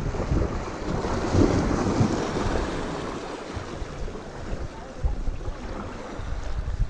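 Wind buffeting the microphone over ocean surf on the shore, with a wave swelling and washing in about a second or two in.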